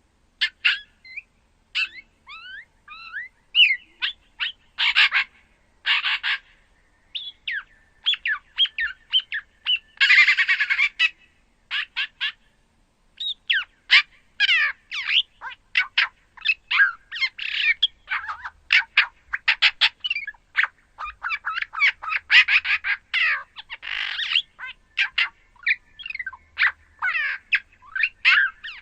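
Songbird calls from red-backed shrike and bearded reedling recordings: a rapid, nearly unbroken chatter of short chirps and sweeping notes mixed with a few harsher rasping squawks, used as a speculative Balaur bondoc call. It begins about half a second in.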